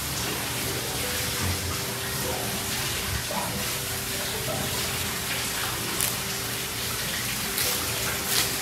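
Steady rush of running water, with a thin steady hum underneath and a few faint knocks near the end.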